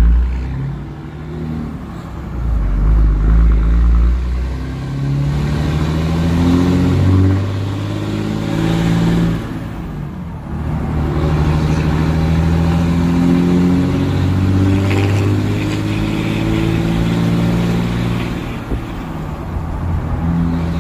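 Dodge Ram pickup's 5.9 Cummins turbo-diesel inline-six, with a manual gearbox, accelerating away. The engine pitch climbs in each gear and drops back at each shift, about three times. It is heard from inside the cab.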